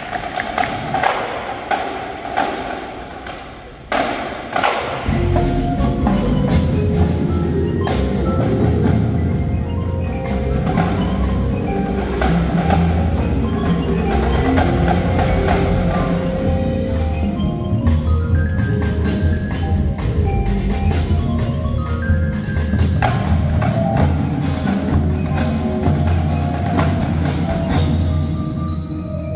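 Indoor percussion ensemble playing: marimbas and other mallet keyboards with drums and cymbals. A sharp hit lands about four seconds in, and a deep, loud bass layer joins about a second later and carries on under the mallets.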